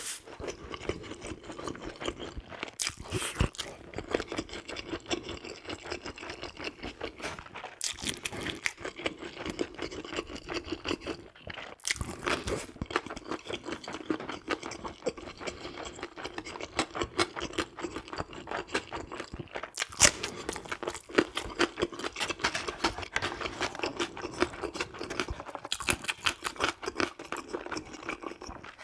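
Close-miked chewing and crunching of food, a dense run of wet mouth clicks with a few louder sharp bites or taps.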